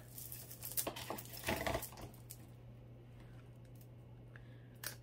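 Costume jewelry being handled: light clicks and clinks of beads and chain, most of them in the first two seconds, then a few faint ticks, over a low steady hum.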